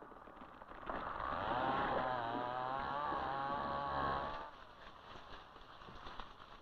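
Chainsaw engine running under load, its pitch wavering up and down as it cuts. It comes in about a second in and fades away after about four and a half seconds.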